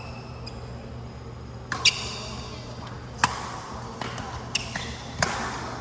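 Badminton rally: several sharp racket-on-shuttlecock hits, the loudest about two, three and five seconds in, with fainter taps between. A short squeak comes with the first loud hit.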